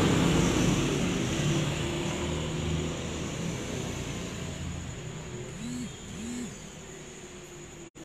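Steady mechanical running hum, loud at first and fading away over several seconds, with two short rising-and-falling squeaks about six seconds in; it cuts off suddenly near the end.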